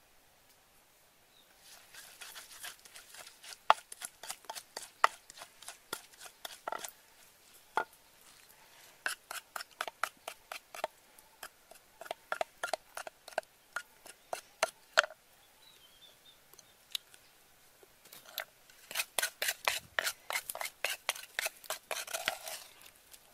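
Wooden pestle pounding and grinding a paste in a wooden mortar: irregular knocks, a pause of about three seconds midway, then a quick run of strikes near the end.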